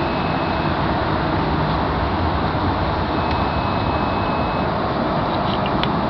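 Steady background roar of distant road traffic, with no siren wail audible; a faint thin high tone shows up briefly twice.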